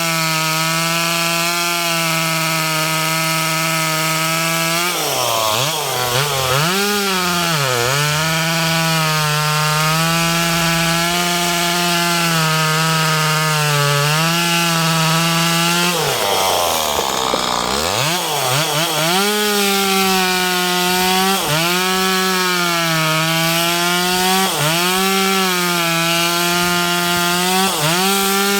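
Ferrino two-stroke gasoline chainsaw running at high revs while cutting firewood. Its pitch sags and recovers twice, in long dips about five and sixteen seconds in, and dips briefly several more times near the end.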